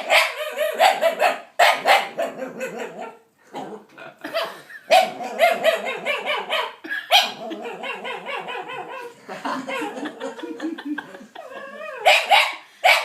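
A dog making a run of weird barking noises, pitched vocal sounds in quick bursts with brief pauses.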